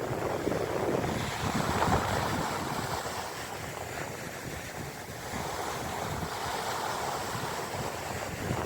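Mediterranean sea waves washing onto the shore, the surf swelling and easing, with wind buffeting the microphone.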